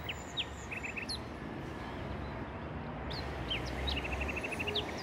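Small birds chirping over steady background noise: scattered short, high chirps, then a quick run of about nine repeated chirps around four seconds in.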